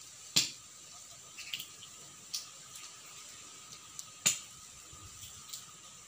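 Sparrows pecking and hopping among dry peanut shells: scattered sharp clicks and ticks, the two loudest about half a second in and just after four seconds.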